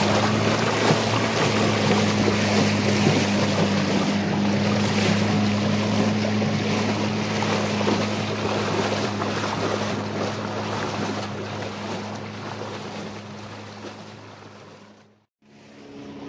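A small boat's motor running at a steady hum, with water rushing and splashing along the hull and wind on the microphone. The sound fades gradually over the second half and drops out to silence for a moment near the end.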